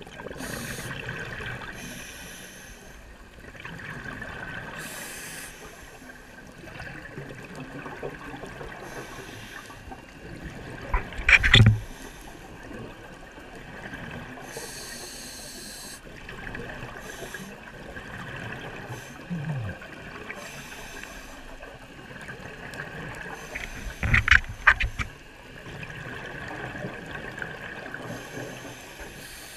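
Scuba diving heard underwater through a camera housing: a steady watery hiss, with two loud bubbling rushes of exhaled air from a diver's regulator about 11 and 24 seconds in.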